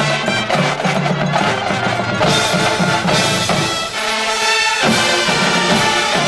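Marching band playing: brass with percussion, with the low end dropping away for a moment about four seconds in before the full band comes back.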